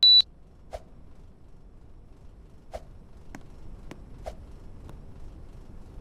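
LG split air conditioner indoor unit giving one short, loud beep as it takes a remote command, followed by several faint clicks over the next few seconds. A low hiss of airflow slowly grows as the unit starts up.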